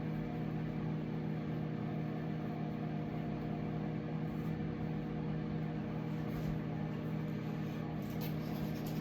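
Microwave oven running through a heating cycle with a steady, even hum.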